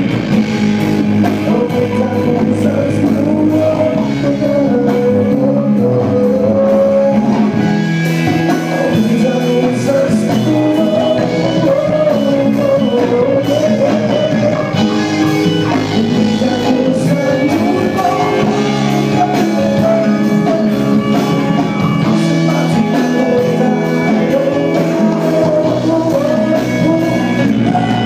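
Rock music with electric guitar and a singing voice, playing steadily.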